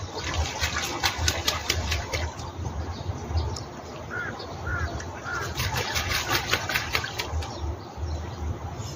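Domestic geese splashing and flapping in the shallow water of a stream, in clusters of quick splashes during the first two seconds and again from about five and a half seconds, with three short bird calls in between. A low rumble runs underneath.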